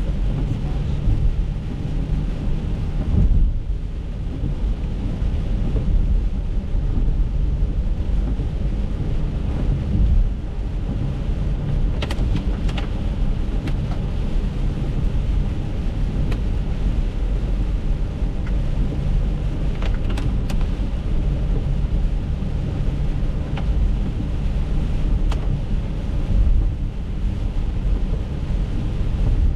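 Steady low rumble of tyres and road noise heard from inside an Acura MDX SH-AWD driving on a wet road in the rain. A few sharp ticks stand out partway through.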